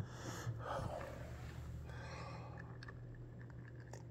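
A man breathing close to the phone's microphone, two soft breaths in the first second, followed by faint ticks and rustles of the phone being handled over a low steady hum.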